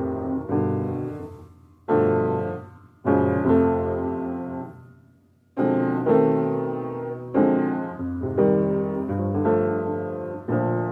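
Piano playing slow chords, each struck sharply and left to ring and fade before the next.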